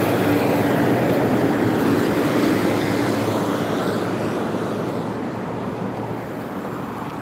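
A car driving past on the road close by, its tyre and engine noise fading steadily as it moves away.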